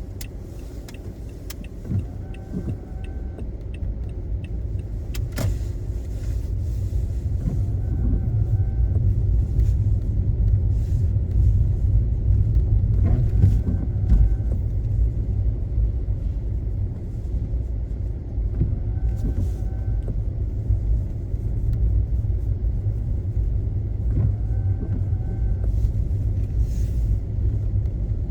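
Car driving, with a steady low road and tyre rumble that grows louder over the first several seconds. A short two-note squeak repeats about every five and a half seconds.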